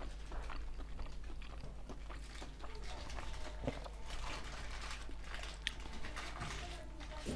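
Close-miked eating sounds: chewing with small wet mouth clicks and smacks, then a bite into a curried boiled egg near the end. A low steady hum runs underneath.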